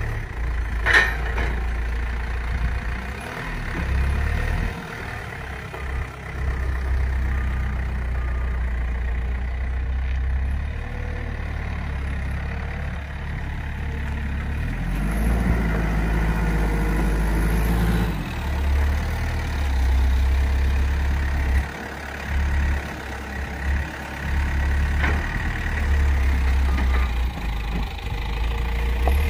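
A heavy vehicle engine running at low revs, its low rumble swelling and easing off several times.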